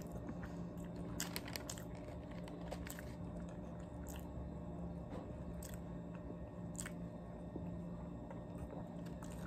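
Faint close-up chewing of a crispy fried chicken burger, with small crunches and mouth clicks scattered through, over a steady low hum.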